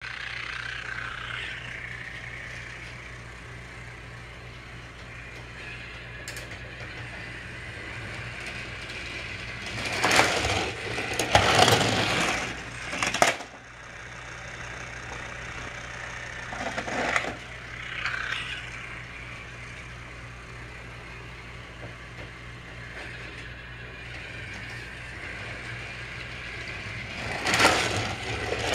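Battery-powered Trackmaster toy train running on plastic track: a steady motor whir with louder rattling, clattering stretches about ten to thirteen seconds in, briefly around seventeen and eighteen seconds, and again near the end as the engine comes into view.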